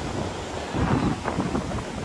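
Wind buffeting the microphone in uneven gusts, with ocean surf washing underneath.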